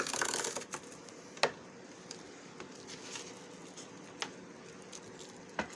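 A blade drawn along cardboard, scoring a fold line: a short scratchy stroke at the very start, then a few light clicks and taps as the cardboard is handled.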